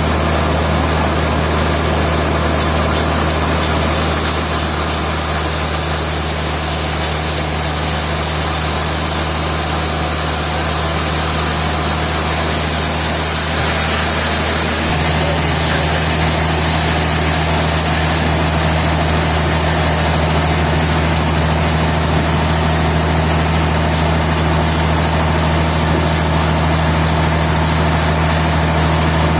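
Sawmill machinery engine running steadily with a constant low hum. A high hiss rides over it from a few seconds in until about halfway through.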